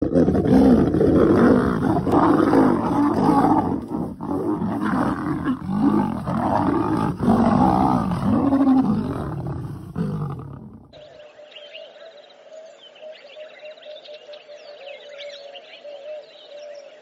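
Lionesses and a male lion snarling and growling loudly as they fight. About eleven seconds in it cuts off abruptly, leaving much quieter chirping and a steady hum.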